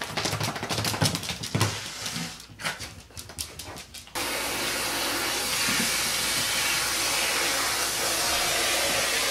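Quick clicks and scuffles of a wet miniature dachshund's claws on a wooden floor as it runs about. About four seconds in, a hair dryer switches on suddenly and blows steadily.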